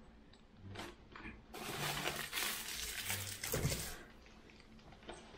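Plastic packaging rustling and crinkling as parts are dug out of a cardboard box: a few short rustles about a second in, then a dense, crackly rustle that dies away after about four seconds.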